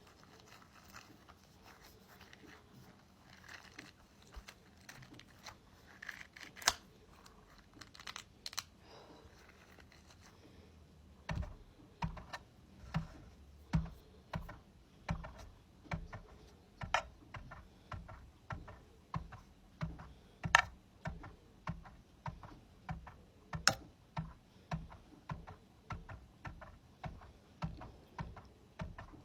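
A ball handled close to the microphone for ASMR: scattered sharp clicks at first, then from about eleven seconds in a steady run of soft taps with a low thud, about two a second.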